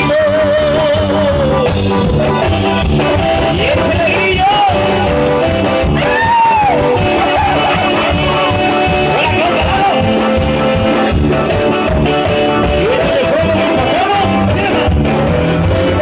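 Live tierra caliente band with trombones, keyboard and electric guitar playing loud and steady, with held, wavering brass or vocal notes over a steady beat.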